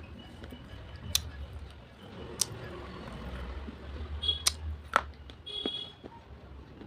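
Slate pencils being bitten: four sharp, crisp snaps spread over the few seconds, with two brief high squeaks between the last ones and a low hum underneath.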